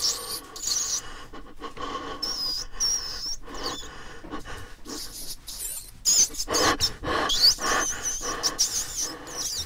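Rats squeaking: many short, high, wavering squeals, coming thickest in the second half, over a scratchy rustle.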